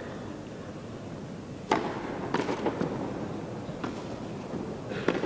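Tennis ball being struck by rackets and bouncing on the court during a rally over a low crowd murmur: a loud sharp hit a little under two seconds in, then several more hits and bounces at uneven intervals.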